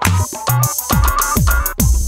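Electronic background music with a drum-machine beat: deep kick drums that drop in pitch, a steady ticking hi-hat and synth chords.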